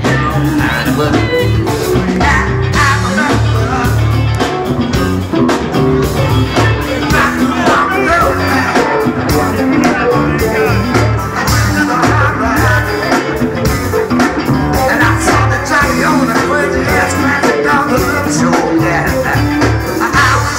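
Live funk band playing with singing: drum kit, congas, bass, electric guitar and saxophone over a steady, bass-heavy beat.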